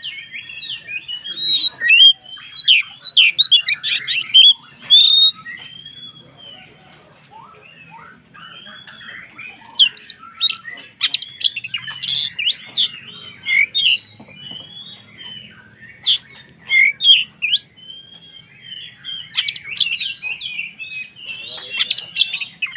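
Oriental magpie-robin (kacer) in full song: rapid, varied whistles and chirps delivered in four loud spells with short quieter pauses between them.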